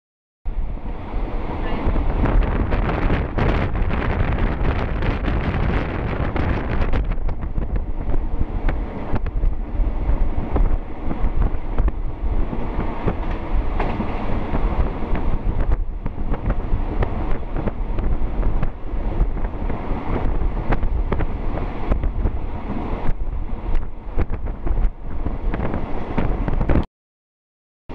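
Diesel passenger train running at speed, heard from inside a carriage: a steady low rumble with many short knocks and rattles, and wind buffeting the microphone. The sound drops out for about a second near the end.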